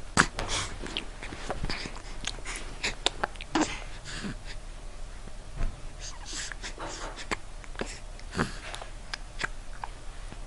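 Hiccups: several short, sudden hics a few seconds apart, with small clicks between.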